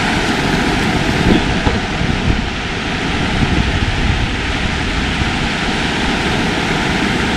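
Steady rushing noise of ocean surf and wind, with uneven low rumbling of wind on the microphone.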